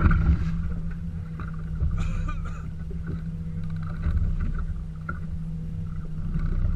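Wind on the microphone and waves slapping against the boat's hull, over a steady low hum, with a brief splashy burst about two seconds in.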